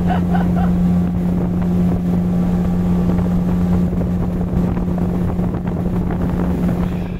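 Outboard motor on a small boat running steadily under way at one even pitch, with wind on the microphone.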